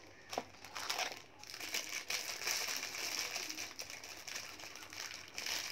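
Clear plastic packaging bag crinkling and rustling while a plastic trimmer guide comb is unwrapped from it, with a couple of light clicks in the first second.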